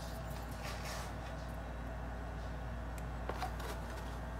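Hands handling small plastic action-figure accessories: a few faint clicks and rustles over a steady low hum.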